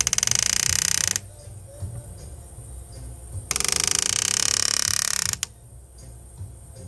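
A graver cutting into an 18k white gold ring band under the pavé diamonds, in two bursts of high-pitched buzzing. One burst stops about a second in, and a second, longer one runs from past the middle to near the end.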